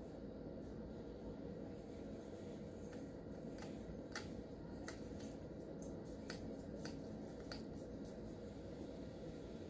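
Faint steady low hum with a scattering of light, irregular clicks, most of them through the middle few seconds.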